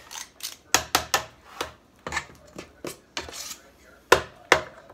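About a dozen sharp, irregular metal clicks and taps: a small portion scoop knocking against a stainless steel mixing bowl and a metal muffin tin as banana muffin batter is scooped into the cups.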